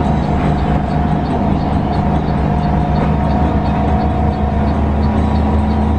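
Diesel engine of a front-engined coach running steadily, heard from inside the cabin, with a light ticking about twice a second.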